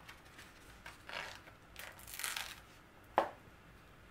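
Rustling of planner sticker sheets twice as a sticker is peeled off the backing, then a single sharp tap about three seconds in.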